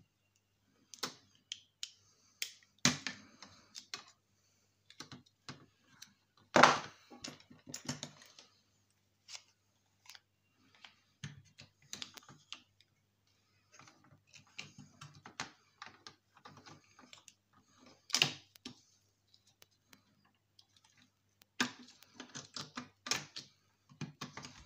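Irregular clicks, taps and rattles of hands pulling a power cable and wires loose inside a stripped disc player's metal chassis. Two louder knocks stand out, about a quarter of the way in and about three quarters in, and a quick run of clicks comes near the end.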